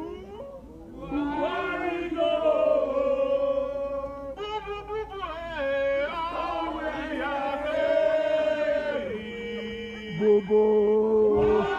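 Protesters singing a chant together, with long held notes.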